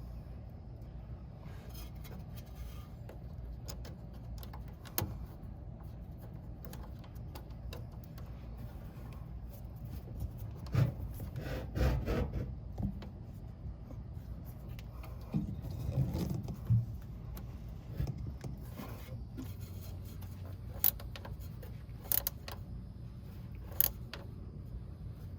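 Scattered metallic clicks, light clinks and scrapes of hand tools and hardware as starter wires are fastened and tightened on a bus's starter, with a few louder knocks about halfway through.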